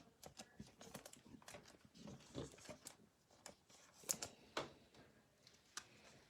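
Faint scattered clicks and taps of trading cards being handled and sorted, with a couple of slightly louder taps about four seconds in.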